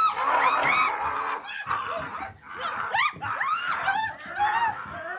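Several dogs whining and yelping: many short, high-pitched cries that rise and fall, overlapping one another.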